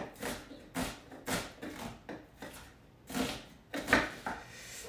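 Chef's knife dicing an onion on a wooden cutting board: about seven uneven strokes, each ending in a sharp knock of the blade on the wood, the loudest near the end.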